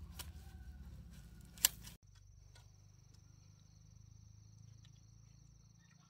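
Outdoor sounds with scattered clicks and one sharp click about a second and a half in, then an abrupt change to an insect trilling steadily at a high pitch.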